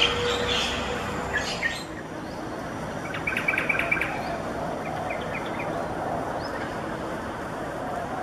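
Yellow-vented bulbuls calling over steady background noise: a few short high notes, then a fast trill about three seconds in, followed by a few single notes.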